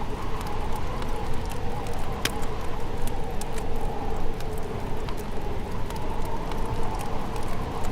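Wood fire crackling, with many small sharp pops and one sharper snap a little over two seconds in, over a steady low rumble.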